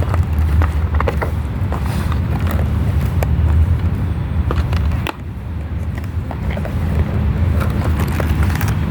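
Steady low rumble of outdoor background noise, with scattered small clicks and rustles of a doll's cardboard-and-plastic box being handled as the doll is freed from the stitching that holds it in.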